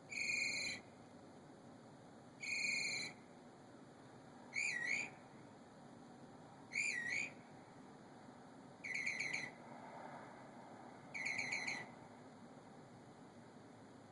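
A bird calling at night in short, clear, whistled phrases about every two seconds, six times. The phrases change as they go: the first two are steady notes, the next two are wavering swoops, and the last two are quick trills.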